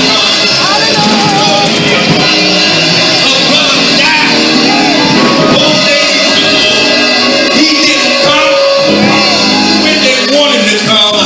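Live gospel music from a keyboard and drums, played loud and steady, with voices singing over it.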